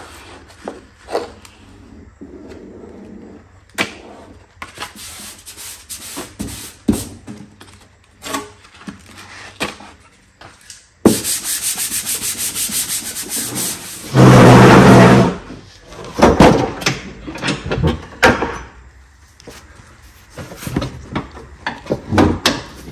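Hands rustling paper backing and rubbing a vinyl decal down onto a lawn tractor's plastic body panel, with many small clicks and scrapes. About 11 seconds in a steady hiss starts, and about 14 seconds in a very loud blast of noise lasts a second or so before the light rustling and clicking resumes.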